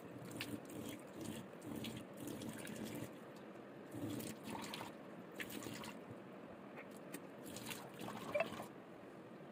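Water being splashed onto the face by hand and dripping off, in uneven splashes with a sharper one near the end, as face-wash lather is rinsed off.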